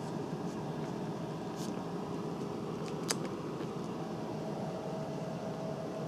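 Steady background hum and hiss, like a running fan. A few faint clicks sound over it, with one sharper tick about three seconds in.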